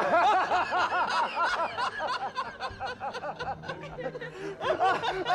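Men laughing hard together in rapid, repeated bursts of laughter that ease off in the middle and swell again near the end.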